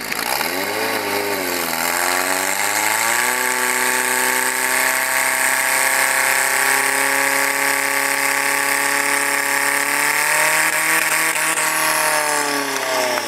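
Portable fire-fighting pump's engine revved hard: it climbs sharply, dips and climbs again in the first few seconds, then holds at full throttle as it drives water out through the hoses. The revs sag briefly and climb again near the end.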